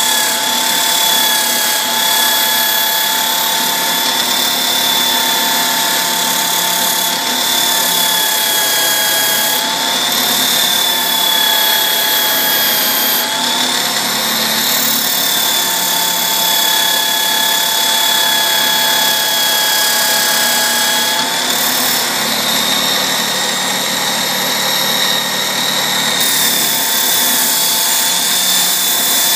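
A machine's motor running steadily with a high whine whose pitch wavers slightly.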